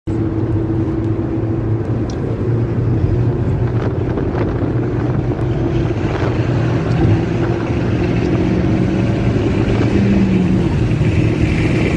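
Four-cylinder car engine pulling steadily at speed, heard from inside the cabin with tyre and wind noise, getting slightly louder toward the end.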